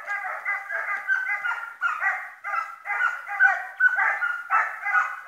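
Serbian hounds baying over and over, about two or three calls a second in an unbroken chorus, the sound of scent hounds giving tongue as they run a hare.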